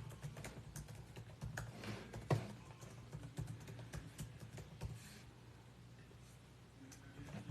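Fingers tapping out text on a phone touchscreen: a quick, irregular run of light taps, thinning out after about five seconds.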